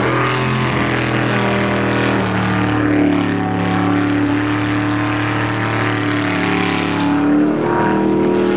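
Jet sprint boat's racing engine running at high revs through the course, the engine note shifting in pitch as the throttle changes through the turns and dropping near the end, over the hiss of its jet spray.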